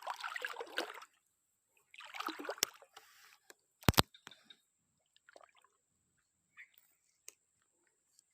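Water sloshing and splashing in two short spells, then two sharp, loud clicks a little before the middle, followed by faint scattered ticks.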